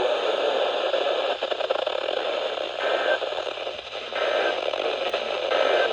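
Steady radio static, a hiss with crackle from a weak weather-radio broadcast, with a faint short tone coming through three times in the second half.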